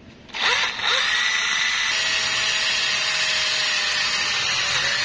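Battery-powered hand drill boring a hole through a metal wiring terminal lug. It starts about half a second in, stutters briefly, then runs at a steady speed with a constant whine.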